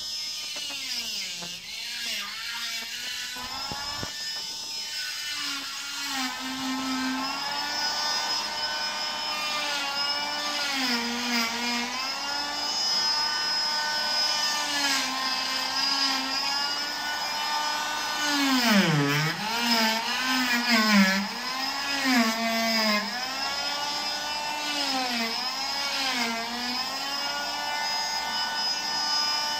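Electric oscillating cast saw running with a steady whine, its pitch dipping and recovering again and again as it cuts through the cast.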